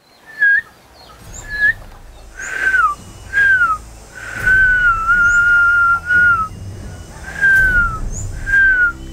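Dogs howling: a run of high, short falling howls with one long held howl in the middle, some overlapping one another. Faint bird chirps sound now and then.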